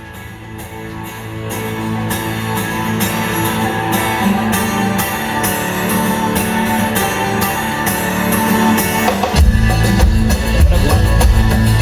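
Recorded guitar-led music playing through a Sony LBT-D905 hi-fi's amplifier and loudspeakers for a sound test. It fades in at the start, and heavy bass and drums come in about nine seconds in.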